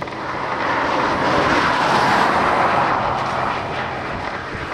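A vehicle passing on the highway close by: road noise swells to a peak about two seconds in, then fades away.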